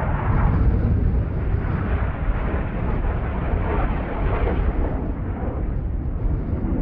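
Jet engine noise from a formation of KAI T-50B Golden Eagle jets, each with a single turbofan, passing overhead: a steady rushing noise with a heavy low rumble.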